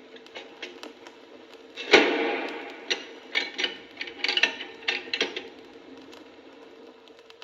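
Coin-operated vending machine mechanism: a heavy clunk about two seconds in, then a run of sharp metallic clicks and rattles, over a steady machine hum.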